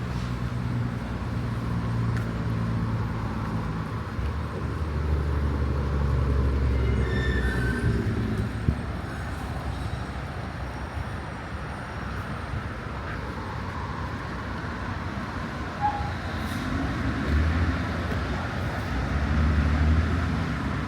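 City traffic passing, a low steady rumble. A heavy vehicle swells past around the middle and another near the end. A single sharp click comes a little before halfway.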